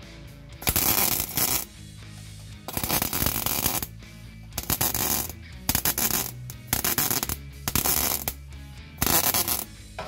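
MIG welder tack-welding a sheet-steel tab onto car floor panelling, the arc crackling in about seven short bursts of half a second to a second each. Background music plays underneath.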